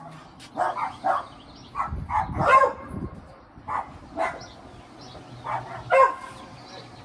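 A dog barking repeatedly, short sharp barks at irregular intervals with brief pauses between them.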